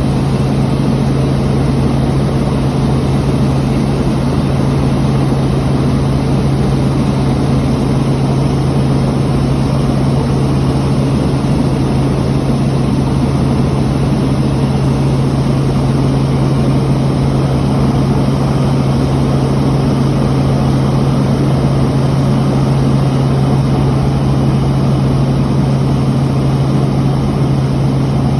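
Helicopter in flight, heard from on board: a steady, loud engine-and-rotor drone with a constant low hum and no change in pitch or level.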